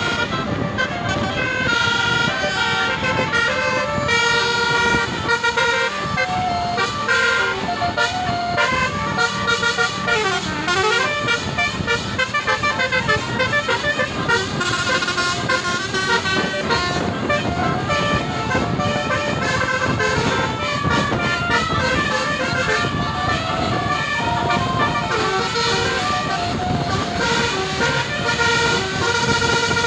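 Tour bus basuri telolet horn playing a fast melody of many short stepped notes, with bus engine and road noise beneath.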